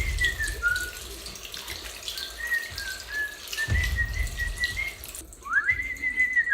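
A person whistling a tune in short held notes that step up and down, over water running from a tap; the running water cuts off about five seconds in while the whistling goes on with quick upward slides.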